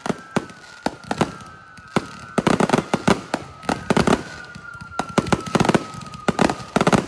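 Fireworks going off: rapid cracks and bangs in dense bursts, with a thin high whistle sliding slowly down in pitch beneath them.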